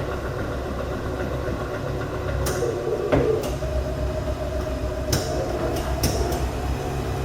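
Hardinge HC turret lathe running in its low speed range: a steady motor and spindle hum with a few even tones. Several sharp clicks and knocks come through it, the loudest about three seconds in and a cluster in the second half.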